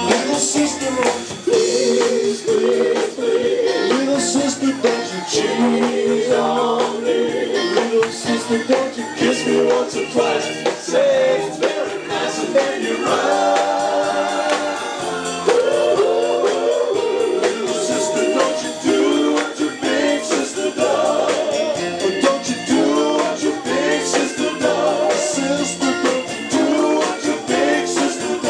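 Live band playing and singing: male lead vocal with other voices joining in, over electric bass, guitars and a drum kit keeping a steady beat.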